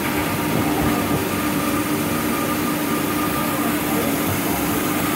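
Jumbo-roll toilet paper cutting machine running steadily: a continuous mechanical drone with a constant tone over a dense rumble.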